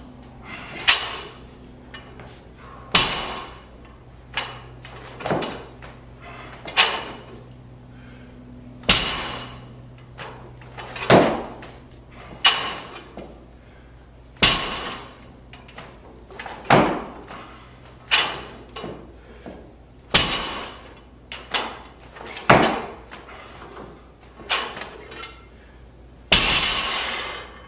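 Loaded barbell clinking and knocking as it is lowered and handled: the plates and collars rattle on the sleeves with sharp metallic knocks about every one to two seconds, each ringing briefly. A steady low hum runs underneath.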